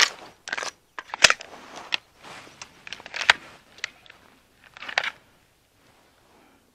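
A handful of sharp clicks and short rustles of gear being handled at a gun belt as a pistol is holstered, stopping about five seconds in.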